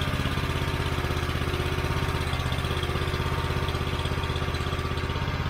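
Honda single-cylinder engine on a hydraulic log splitter running steadily just after being pull-started, with an even, rapid chug.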